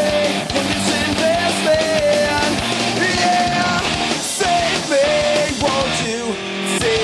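Punk rock band playing loud: a dense wall of guitars and drums, with a melody line that is held and bends in pitch.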